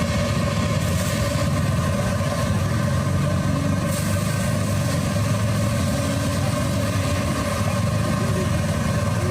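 A steady low mechanical rumble, engine-like, running evenly without change.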